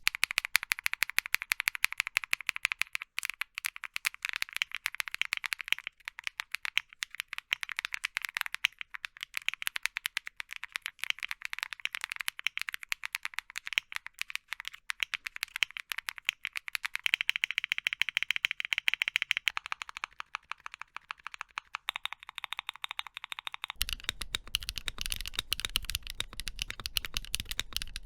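Rapid typing on a mechanical keyboard fitted with HMX Cheese linear switches, a dense run of clacky keystrokes. About 24 seconds in it changes to a Keychron Q1, and the keystrokes take on a deeper, fuller sound.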